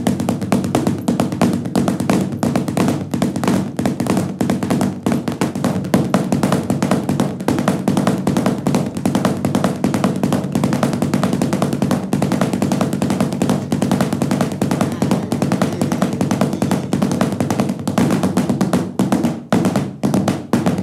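Two drummers playing a fast, dense rhythm together with drumsticks on a padded footstool.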